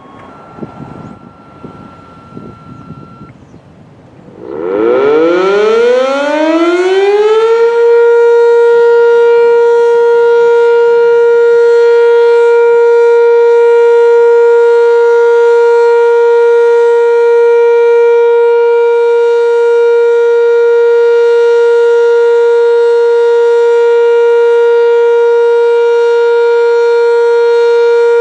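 Sentry 10V outdoor warning siren winding up, rising in pitch over about three seconds from about four seconds in, then holding one loud, steady tone: the steady alert signal of a siren test.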